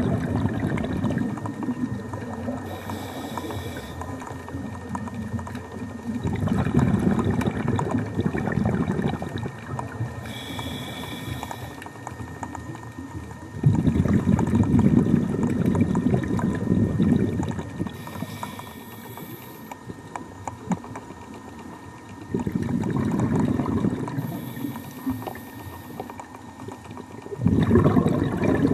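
Scuba diver breathing through a regulator underwater: a short hiss on each inhalation, then a long gurgling rush of exhaled bubbles, about four breaths in a slow, even cycle.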